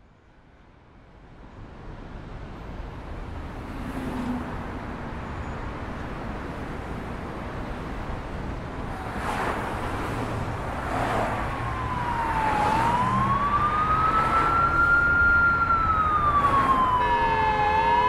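Synthesised city ambience from Krotos Studio's City preset: a traffic bed fades in from silence and grows steadily louder. From about ten seconds in, a siren wails slowly up and down, and a car horn sounds briefly near the end.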